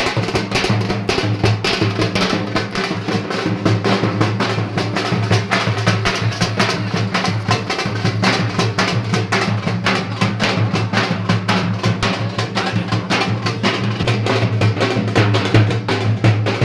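Dhol and tasha drums playing a fast, continuous beat of rapid strokes.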